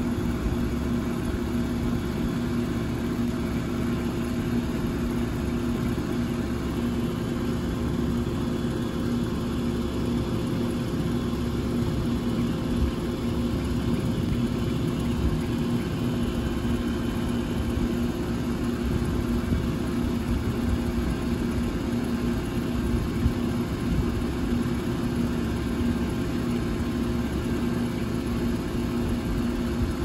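2001 York 2-ton air conditioner running steadily: a constant hum from the unit under the even rush of its fan.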